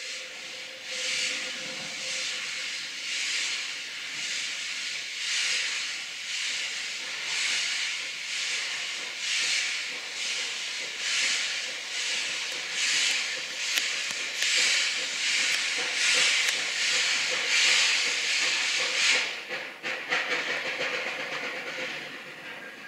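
Narrow-gauge steam locomotive pulling away, its exhaust chuffing about once a second and gradually quickening, with steam hissing throughout. The last note of its steam whistle fades in the first couple of seconds.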